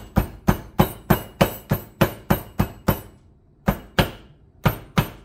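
Flat-bottomed meat tenderizer pounding tablets inside a silicone bag on a plastic cutting board, crushing them to powder. Sharp knocks come about three a second, with a short break about three seconds in.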